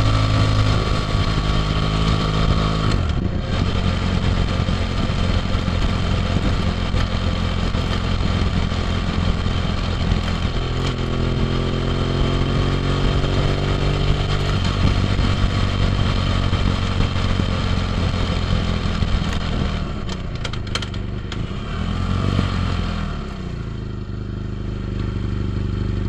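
BMW F800GT's parallel-twin engine breathing through an AC Schnitzer Stealth aftermarket end silencer, heard from the rider's position while underway: a steady running note that steps up and down in pitch several times with gear changes and throttle, then eases off near the end as the bike slows. Wind noise runs underneath.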